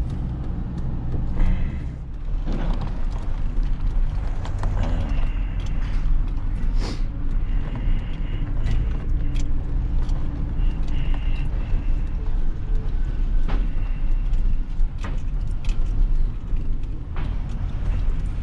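Truck engine idling steadily, with scattered clicks and short high squeaks and creaks from the rig.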